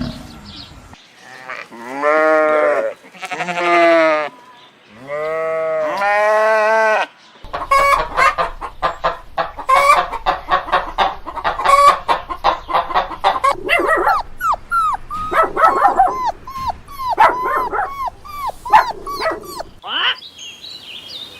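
Chickens calling: four long, arching calls in the first seven seconds, then a flock clucking in quick, overlapping short calls until near the end.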